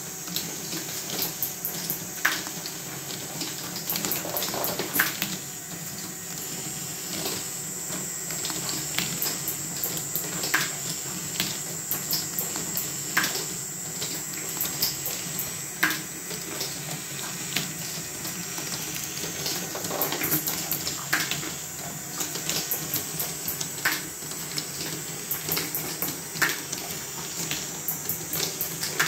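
A Fischertechnik ball machine running: small steel balls rolling and rattling along plastic tracks and a plastic chain conveyor clattering steadily, over a thin steady whine. A sharper click comes about every two and a half seconds.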